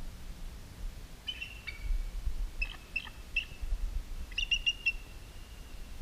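Bald eagle calling: three bursts of quick, high, thin chirps spread over about four seconds, the last trailing off into a short thin whistle, over a low rumble.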